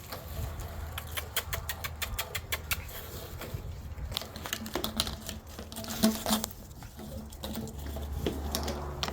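Shiba Inu puppies scuffling at play: runs of rapid clicking and pattering from their paws and claws, with the busiest stretches near the start and again a little past the middle.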